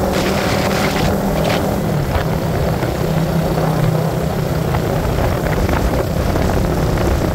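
Steady drone of a motor vehicle's engine, with a constant rushing noise over it.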